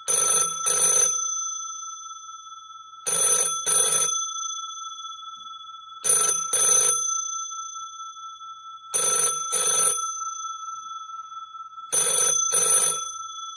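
Telephone bell ringing in a double-ring pattern, two short rings then a pause, repeating every three seconds for five rounds, with the bell's tone lingering between rounds.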